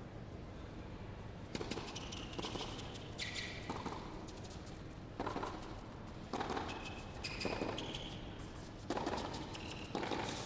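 Tennis rally: rackets striking the ball and tennis shoes squeaking on the court in short high squeaks, with a low hall background.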